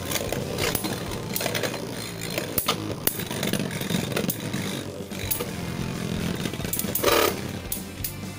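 Two Metal Fight Beyblade tops, Bahamdia Dragooon and Saramanda Ifrit, spinning and grinding across a plastic Zero-G stadium, their metal wheels clashing in repeated sharp clacks. The hardest hit comes about seven seconds in.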